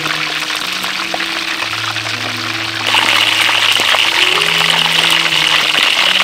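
Hot oil sizzling around a whole fish deep-frying in a wok, a steady hiss that gets louder and sharper about three seconds in. Background music with slow held notes plays throughout.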